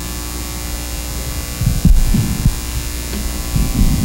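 Steady electrical hum and buzz from the church sound system. From about two seconds in come loud, low thumps and rumbles as the lectern microphone is bumped.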